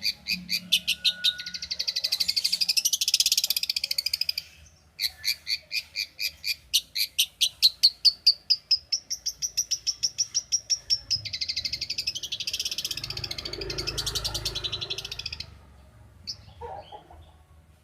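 Long-tailed shrike (cendet) singing in fast runs of rapidly repeated high notes. It breaks off for a moment about four and a half seconds in, then resumes with a long rapid run that stops near the end, followed by a faint short call.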